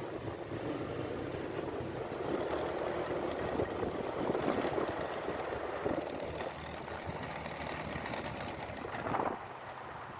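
Motorbike engine running steadily while the bike is ridden along a paved road, with a continuous rush of road and air noise.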